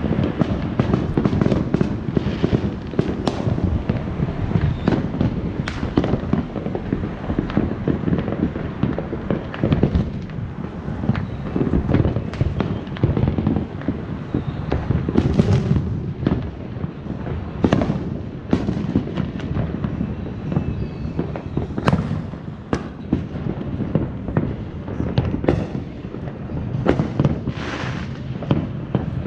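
Many consumer fireworks and firecrackers going off at once: a dense, continuous crackle and rumble. Sharp, louder bangs stand out every second or few.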